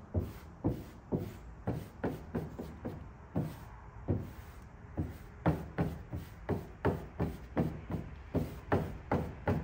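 A squeegee being swiped over matte black vinyl film on a car hood in quick short strokes, about two to three a second, coming faster and harder from about halfway through. The film is being pressed down so its pressure-sensitive adhesive takes hold.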